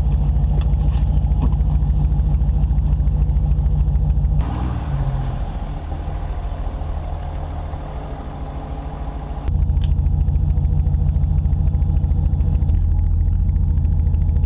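Audi SQ5's V6 exhaust, a deep steady rumble close at the twin tailpipes. About four seconds in it cuts to a quieter engine sound with a short rise in pitch, and after about nine and a half seconds the loud, steady rumble returns.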